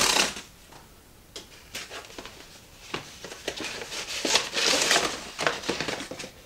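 Cardboard mailer box being torn open: a short rip of the tear strip at the start, then the cardboard flaps pulled back and the box handled, with scattered scrapes, clicks and rustling that grow louder about four seconds in.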